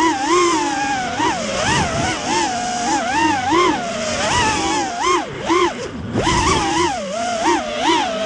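Racing drone's brushless motors and propellers whining, the pitch swooping up and down as the throttle is worked, with a brief dip and a rush of wind noise around five to six seconds in.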